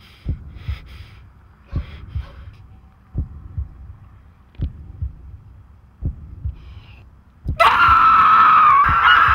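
Slow heartbeat sound effect, a double thump about every second and a half, with faint breaths over the first few seconds. About seven and a half seconds in, a woman lets out a loud, sustained scream.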